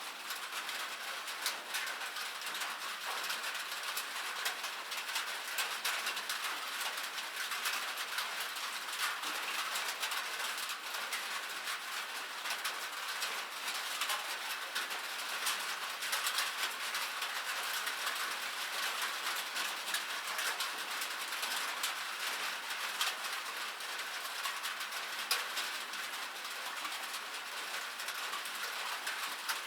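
Steady rain falling on a metal surface: a dense, even hiss packed with countless small, sharp ticks of individual drops striking the metal.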